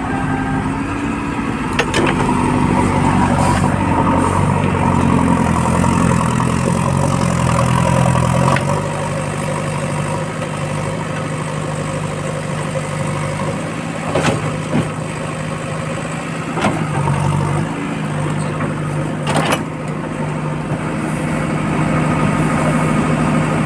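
Heavy diesel engine running under load, its note rising and falling for the first eight seconds or so, then settling to a steady note. A few sharp knocks come through now and then.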